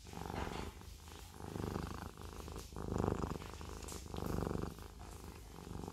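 Siamese cat purring close up. The purr swells and fades in time with its breathing, about once every second and a half.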